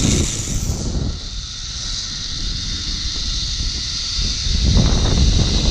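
Zip-line ride: a steady high hiss from the trolley running along the cable, with wind buffeting the microphone, strongest at the start and again near the end.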